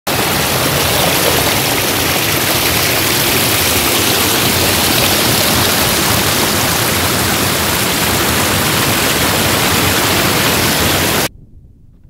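Small waterfall, water pouring over rock ledges, heard up close as a loud, steady rush. It cuts off suddenly near the end.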